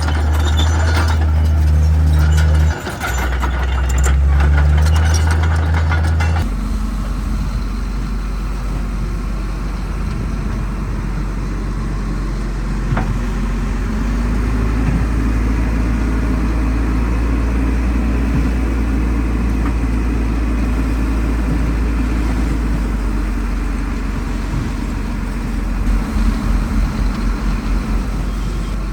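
Heavy construction-machine diesel engines running steadily. The sound changes abruptly about six seconds in to a different, slightly quieter engine, and a fast low pulsing comes in near the end.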